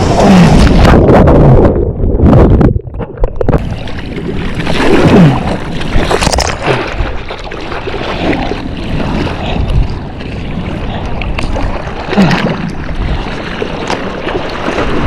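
Ocean water sloshing and splashing around an action camera held at the surface while paddling out in surf, with wind buffeting the microphone. The sound goes briefly muffled, losing its highs, around two to three seconds in.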